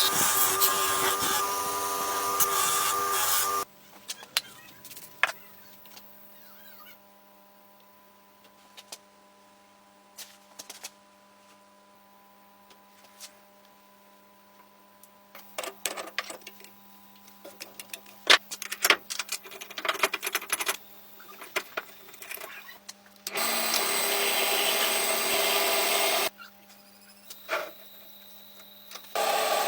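A small power tool runs steadily for about three and a half seconds, stops, then runs again for about three seconds near the end and starts once more at the very end. Between the runs there is a faint steady hum with scattered clicks and taps.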